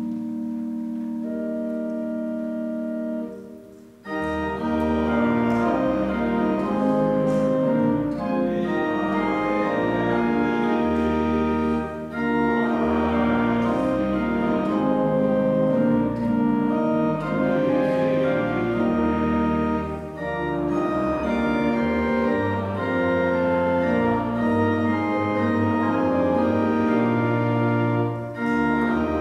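Church organ playing a slow hymn-like tune in phrases. It holds a single chord, breaks off briefly, then plays fuller, pausing between phrases about every eight seconds.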